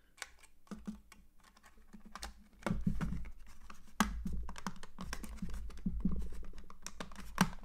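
Small plastic clicks and rubbing as a DJI Mavic Mini's plastic cover is pressed down and snapped onto the drone's body by its tiny clips. There is a sharper click about four seconds in and another near the end.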